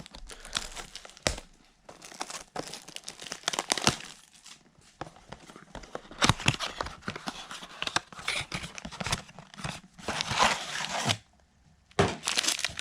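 Cardboard baseball-card blaster boxes being torn open by hand, with ripping and crinkling in repeated bursts and a few sharp clicks, pausing briefly about a second before the end.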